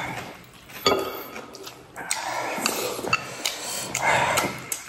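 A man eating stewed glass noodles with chopsticks from a porcelain bowl: a sharp click of chopsticks on the bowl about a second in, then two spells of slurping.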